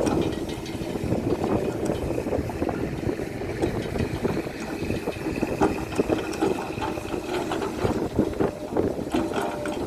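Hydraulic excavator working: the diesel engine runs steadily under many short knocks and clatters, with a faint high whine through the middle.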